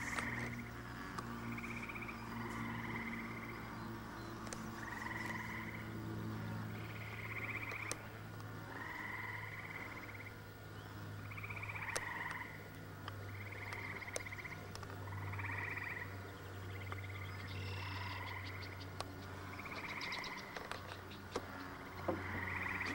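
A chorus of frogs calling from the marsh: short trills, one after another about once a second, some overlapping, over a steady low hum.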